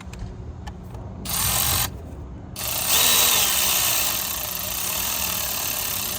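Power driver driving in the new fuel heater screws: a short run, then a longer run of several seconds.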